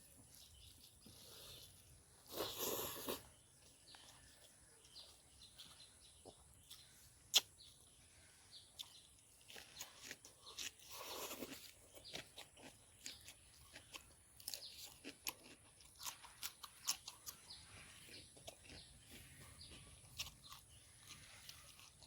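Quiet chewing and crunching of food close to the microphone, with many small mouth clicks and two short, louder noisy bursts, one a couple of seconds in and one about halfway through.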